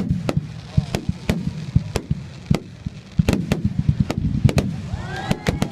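Aerial fireworks bursting in quick succession: many sharp bangs, several a second, over a continuous low rumble.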